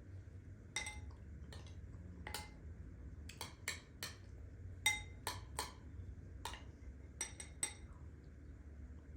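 Dishes clinking: about a dozen irregular, sharp clinks with a brief ring, as a utensil strikes a ringing dish, bunched mostly in the middle of the stretch.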